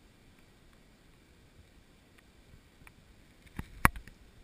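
Faint background with a few light scattered ticks, then two sharp knocks in quick succession near the end, the second much louder.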